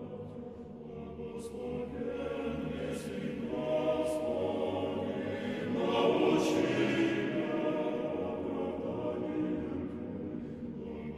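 A choir singing slow chant in long held chords, swelling louder twice in the middle.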